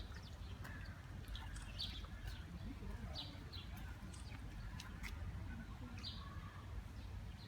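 Birds giving short, scattered chirps and calls over a steady low rumble.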